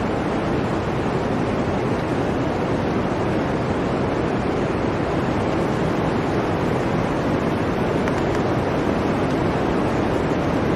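Blizzard wind blowing steadily, a dense, even rush with no gusts or breaks.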